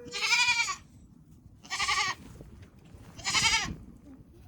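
A goat bleating three times: loud, wavering calls of about half a second each, spaced about a second and a half apart.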